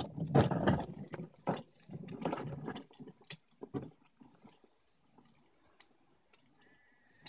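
Hard plastic wheels of a ride-on toy car rolling over concrete paving slabs: a rough rumble broken by knocks as the wheels cross the joints between slabs, loud for about the first three seconds, then fading to scattered light clicks.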